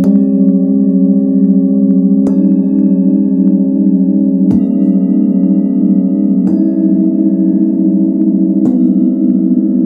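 Set of hand-forged Tibetan singing bowls struck one after another, five strikes about two seconds apart. Each strike adds its own note to a ringing chord that keeps building. The low notes waver in a slow pulsing beat.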